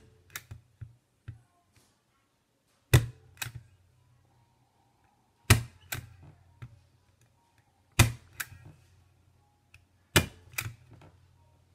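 Swingline desktop stapler driving staples through folded polypropylene filter fabric: sharp clacks in pairs, one pair about every two and a half seconds, four staples in all.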